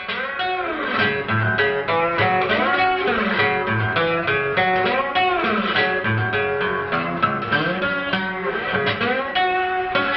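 Guitar music: a run of picked notes with bends over a low bass line.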